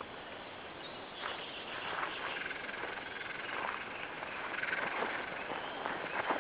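Footsteps brushing through grass on a meadow path, soft irregular steps with a steady rustle.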